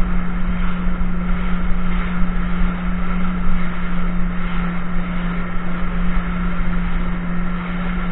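Jet ski engine running at a steady pitch under a constant rush of water and wind noise.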